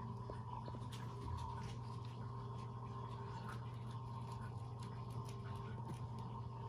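Faint light scratching and tapping, a cat's paw working at the edge of a wooden door, scattered as small irregular ticks over a steady low hum.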